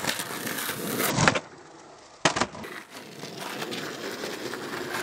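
Skateboard wheels rolling on rough asphalt. The board snaps with a loud clack about a second in and lands with a second sharp clack about a second later, then rolls on: a no comply 180 landed.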